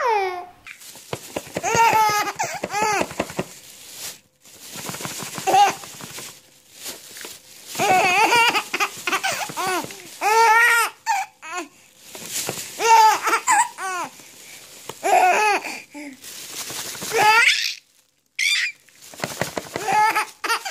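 A young baby laughing in repeated bursts of high-pitched giggles, with short pauses between them.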